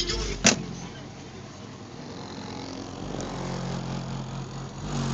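A car door shuts with a single thump about half a second in, and the music then goes on as muffled bass from the Q Power subwoofer box heard through the closed car body, with steady low bass notes coming back in about three seconds in.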